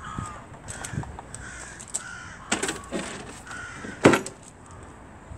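A hardboard back panel is pulled out of a Hammond organ cabinet and set aside, with scraping and several knocks. The loudest knock comes about four seconds in.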